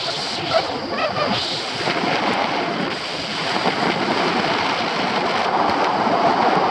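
Steady wind noise rushing over the microphone of a paraglider in flight.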